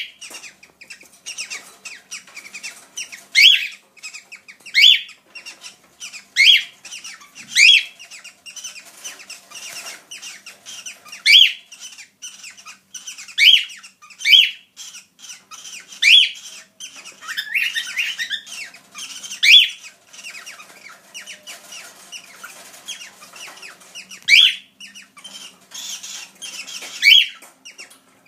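Several pet cockatiels calling: loud, sharp upward-sweeping calls every second or two, about a dozen in all, over steady softer chirping and chatter.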